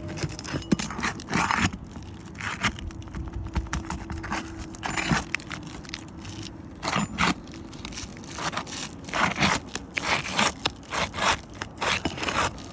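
Roofing pry tool scraping and levering under asphalt shingles to pop the nails, with irregular crunching and tearing strokes as the worn, brittle shingles rip.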